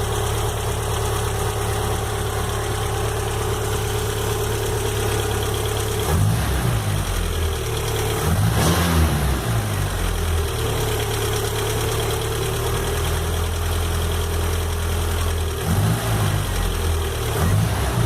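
Volkswagen AP four-cylinder engine idling, revved briefly three times. It carries a tec-tec-tec ticking that shows when the engine is warm and is still there after a rebuild and new hydraulic lifters, so its cause is unknown.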